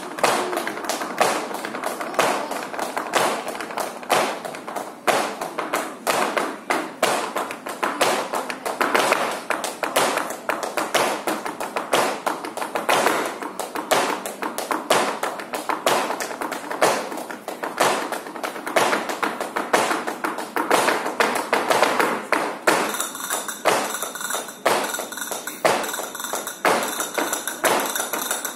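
Tap dancing: tap shoes striking a stage floor in fast, dense rhythmic runs of sharp clicks.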